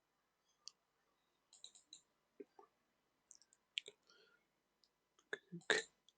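Faint, scattered clicks of a computer mouse and keyboard, irregular, with a louder cluster near the end that includes a dull knock.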